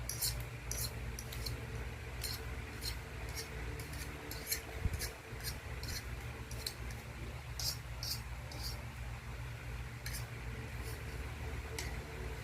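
Repeated short, light clicks and scrapes at irregular intervals over a steady low hum.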